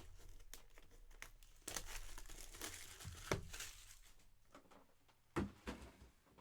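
Plastic wrapping on a sealed trading-card box being torn and crinkled, with scattered clicks and a couple of light knocks near the end as the box is handled.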